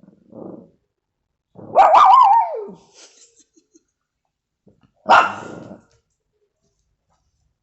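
Dog barking and growling: a faint low grunt near the start, a loud wavering bark about two seconds in that slides down in pitch at its end, and a single short, sharp bark about five seconds in.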